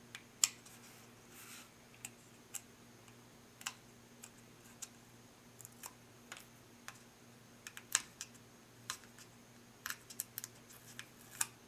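Irregular small clicks and taps of fingers handling a flight controller board and peeling and pressing foam adhesive pads, the loudest about half a second in, over a faint steady low hum.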